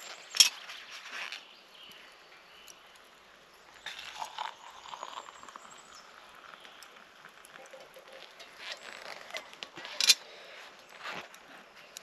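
Sharp clinks of metal camp cookware, once near the start and once near the end. In between, hot water is poured from a camping pot into an enamel mug.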